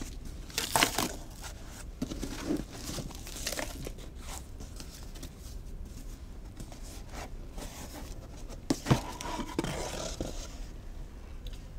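Old cardboard box being cut and opened by hand: scissors snipping, cardboard flaps rustling and crinkling, and scattered scrapes as the wooden packing inside is handled, with a sharp knock about nine seconds in.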